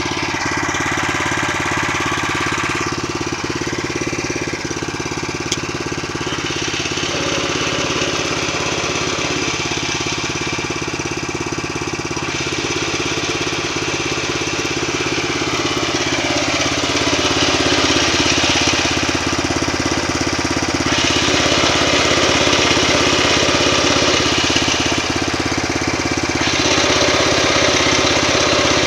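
New MTZ (Belarus) tractor running, its diesel engine and gearbox noise heard together. The sound is steady, with its higher part changing every few seconds and growing a little louder about two-thirds of the way in.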